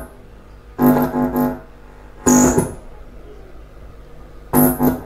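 PA amplifier speaker giving short bursts of a steady, buzzy pitched tone, three times, each under a second with a crackle at its start, cutting in and out. The bursts come while the dead channel 1 is being traced.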